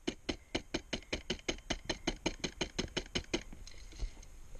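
HPA airsoft rifle (G&G CM16) firing a rapid string of about twenty shots, about six or seven a second, as sharp evenly spaced clicks that stop about three and a half seconds in.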